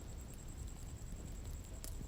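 Wood bonfire crackling, with a few sharp pops (the loudest near the end) over a low steady rumble. A steady high-pitched insect trill sounds behind it.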